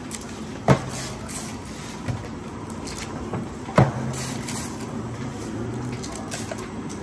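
Factory work noise: a steady background with two sharp knocks about three seconds apart, each followed by about a second of low hum.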